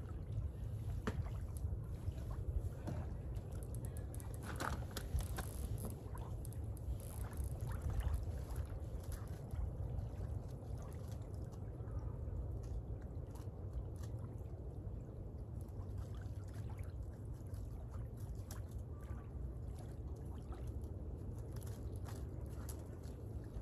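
Wind buffeting the microphone in a steady low rumble, with small waves lapping at the lake's edge and scattered light clicks and taps.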